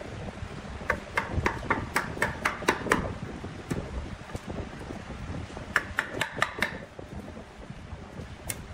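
Homemade wood lathe running with a low rumble while a hand chisel cuts a wooden bowl, broken by runs of sharp wooden knocks, about four a second, twice in the middle and once more near the end.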